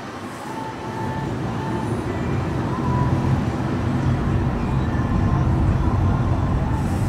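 Car cabin noise while driving: engine and tyre rumble heard from inside the car, growing louder over the first few seconds as the car picks up speed. A few faint, short, high squeaks sound over it.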